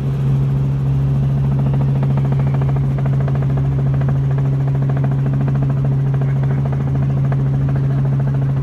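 Helicopter turbine and rotor running steadily, heard from inside the cabin: a strong, steady hum with a fast, even pulsing of the blades, as the helicopter comes in low toward its landing pad.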